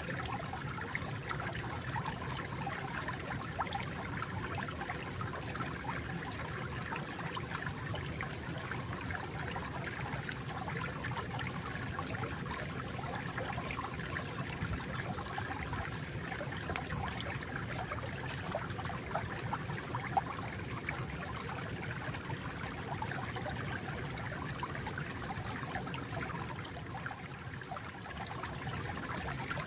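Water flowing and trickling steadily, like a small stream running over stones, with a continuous bubbling splash.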